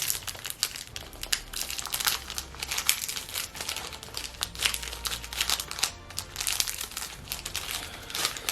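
Plastic snack wrapper crinkling and crackling in irregular bursts as it is handled and opened.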